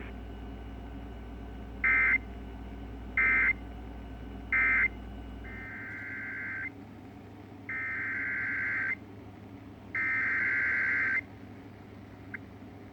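Emergency Alert System SAME digital data bursts, the harsh two-tone buzzing of the alert code. First come three short bursts, the end-of-message code that closes the warning just read. About six seconds in, a low hum underneath stops, and three longer header bursts follow, about a second each, that open the next alert.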